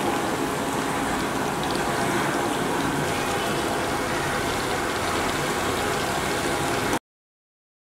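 Chicken pakora pieces deep-frying in hot oil: a steady sizzle and bubbling that cuts off suddenly about seven seconds in.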